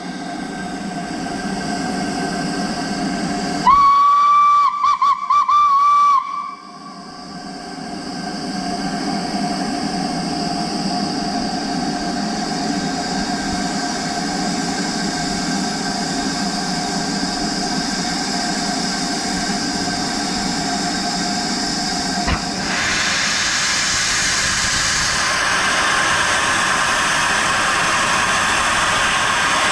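Steam locomotive LNER B1 No. 61306 Mayflower standing with steam hissing steadily; about four seconds in its whistle sounds one blast of about two and a half seconds, fluttering briefly near its end. About twenty-two seconds in, the hiss turns louder and sharper as steam billows out low around the front of the engine, typical of the cylinder drain cocks being opened.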